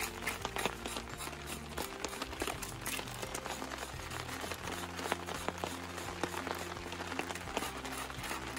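Knife blade scraping wet birch bark to raise fine fibres for tinder: many quick, irregular scratching strokes. Background music with slow, changing low notes plays underneath.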